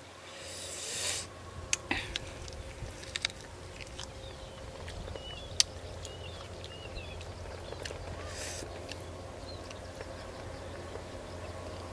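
Eating sounds: boiled chicken being pulled apart by hand and chewed, with scattered sharp clicks and a short rustle, over a steady low hum. Birds chirp faintly a few times in the middle.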